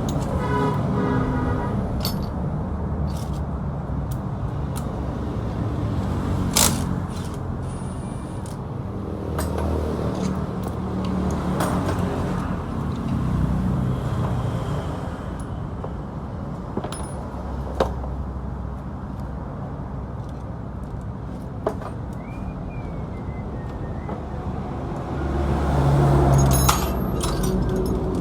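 Motorcycle engine running with an uneven low rumble, swelling louder for a couple of seconds near the end. Scattered sharp metallic clicks and clinks sound over it.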